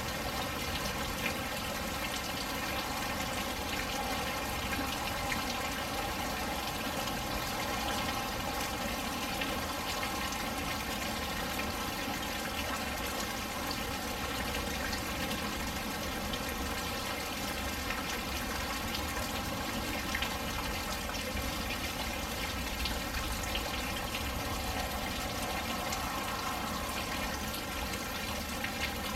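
Steady rain falling, a continuous wash of water, with a couple of sharper drop hits.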